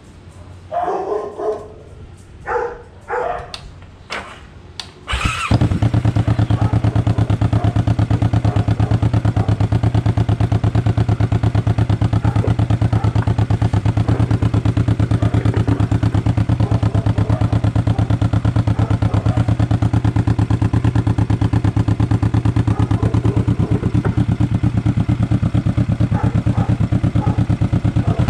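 A dog barks several times. About five seconds in, a Kawasaki Vulcan S 650's parallel-twin engine starts and settles into a steady idle through an Orion full-system aftermarket exhaust.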